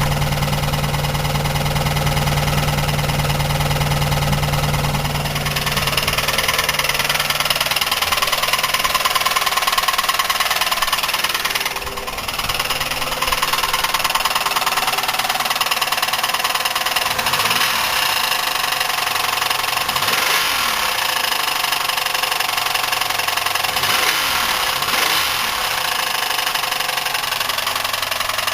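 Buick 3800 3.8-litre V6 running with a rapid, steady knock from the bottom end, its pitch rising and falling a few times in the second half. The knock is the sign of a worn wrist pin and damaged piston at the rod's small end, not lifters or rod bearings, which the owner suspects came from oil starvation or overheating.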